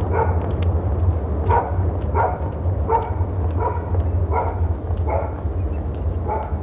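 A dog barking over and over, a short bark about every three-quarters of a second, above a steady low rumble.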